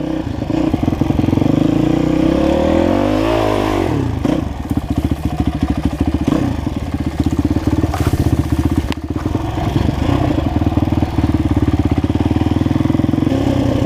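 Dirt bike engine heard from on board while riding a trail. It revs up and back down about three seconds in, then runs steadily at low revs with even, distinct firing pulses. A couple of sharp knocks come near the eight- and nine-second marks.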